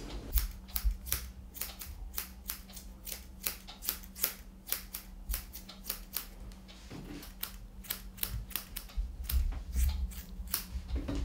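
Airedale terrier's wiry coat being hand-stripped: a quick uneven run of sharp little plucks and snaps, about three a second, over a faint steady low hum.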